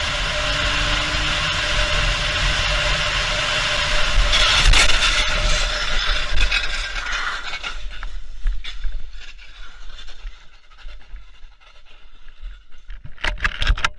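Car travelling at speed with steady road and engine noise, then a crash about four seconds in: a run of heavy impacts and scraping as the car tumbles. It fades into scattered clattering, with a few sharp knocks near the end.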